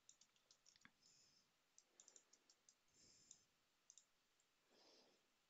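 Faint, irregular clicks of a computer keyboard and mouse at a quiet desk.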